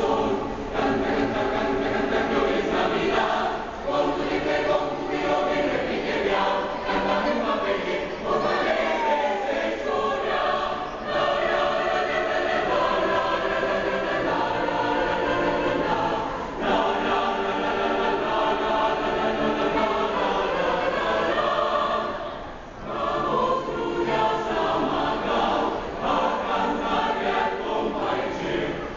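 Mixed choir of men's and women's voices singing in parts, in long sustained phrases with brief pauses between them.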